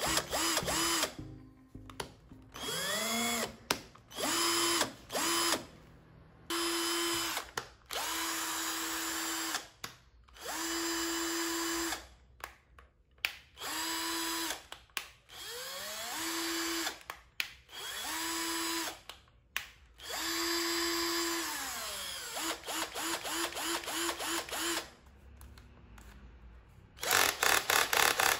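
Cordless drill motor run in about a dozen short bursts of a steady whine, each started and stopped with the variable-speed trigger. Some bursts sweep up in pitch as the motor speeds up and down as it slows. Near the end come a run of quick stuttering pulses and then a loud, rapid clicking.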